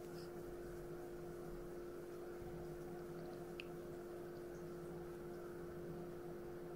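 Electric hand mixer running at a steady speed, a constant hum as its beaters whisk egg whites and sugar toward a meringue.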